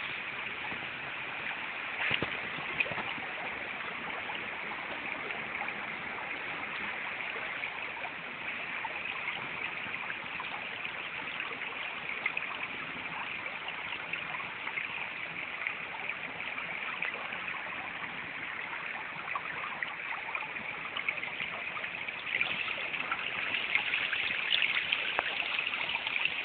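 A shallow woodland stream running and trickling steadily, a little louder near the end.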